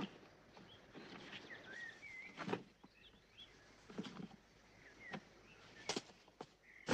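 Quiet outdoor ambience with small birds chirping, and a few soft thumps and footsteps as suitcases are picked up and carried.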